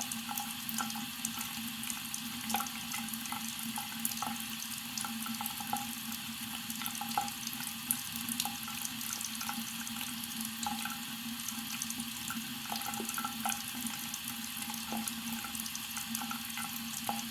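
Faucet running slowly into a sink, a steady stream with small irregular splashes as the water goes down the drain.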